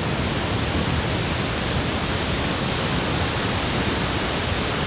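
Steady, loud roar of Niagara Falls: the constant rush of falling water.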